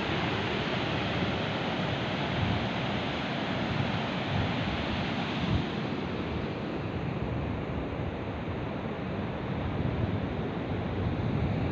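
Surf washing on a sandy beach as a steady hiss, with wind buffeting the microphone in low gusts. The surf's hiss thins out about halfway through.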